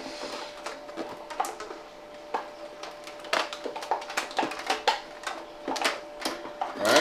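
Irregular clicks and crinkles of a thin, flimsy plastic tub and its lid being handled while rubber bands are fitted around it to seal the lid.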